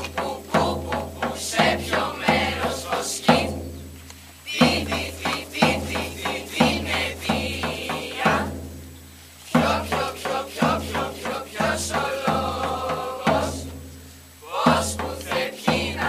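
Music with a drum beat and chanted group singing, in phrases of about five seconds broken by short pauses.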